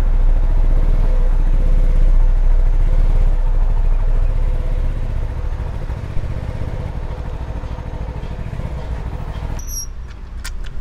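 Motorcycle ride on a CFMoto 250NK: its single-cylinder engine running under a heavy rumble of wind on the microphone, easing off after about four seconds. Near the end the sound changes abruptly to a quieter one with a few sharp clicks.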